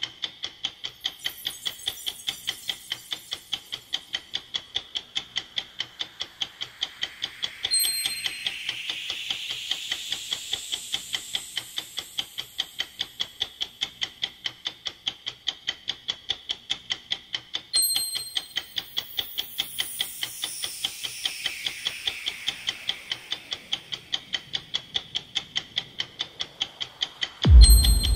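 Clock ticking steadily, about three ticks a second. Twice a soft whoosh swells and fades, each starting with a brief bright chime, and a deep boom hits just before the end.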